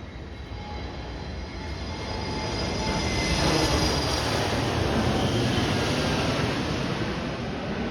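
Airplane passing overhead: its rushing roar with a faint high whine builds to a peak about halfway through, then slowly fades.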